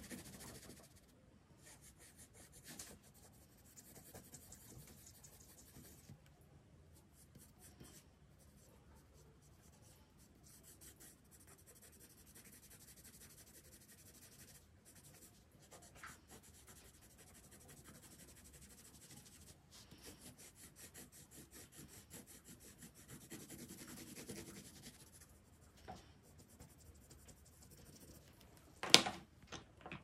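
Pencil scratching and rubbing on paper in many short strokes as a drawing is shaded, faint throughout. There is one sharp tap near the end.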